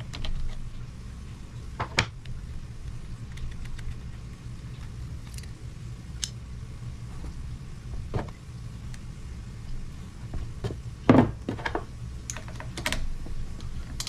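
Scattered small clicks and clinks of hand tools and metal parts being handled while the top end of a Honda XR100R engine is taken apart, with one louder clunk about eleven seconds in, over a steady low hum.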